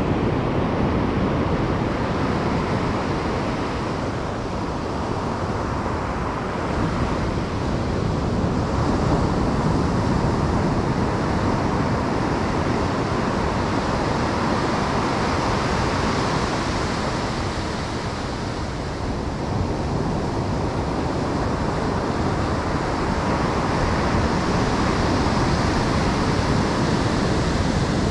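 Ocean surf breaking and washing up a sandy beach, a steady noise that swells and eases slowly, with wind on the microphone.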